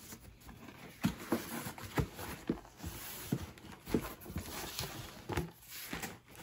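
A cardboard subscription box being opened and its contents handled: a run of irregular knocks and taps with rustling of the packaging.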